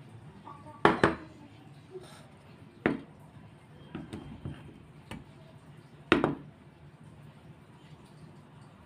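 Knife knocking on a cutting board while cutting food: separate sharp knocks about a second, three seconds and six seconds in, with lighter taps between.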